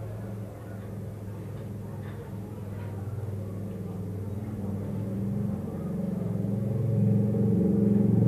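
A low, steady hum that grows louder toward the end, with a few faint clicks.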